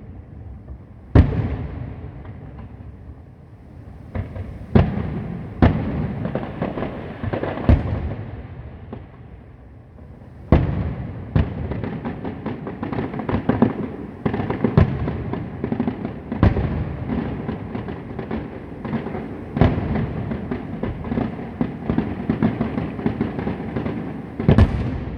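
Fireworks going off: loud separate bangs of shells bursting, each with a rumbling echo, and from about ten seconds in a dense, continuous crackle of many small reports. A last big bang comes near the end.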